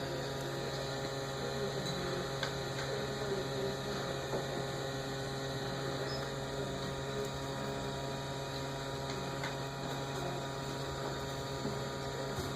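MakerBot Replicator 2 3D printer humming steadily while its extruder heats up before printing, with a few faint ticks.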